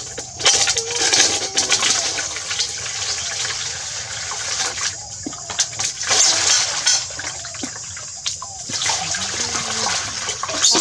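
Water running and splashing during a bath, a steady rushing that breaks off briefly a couple of times before starting again.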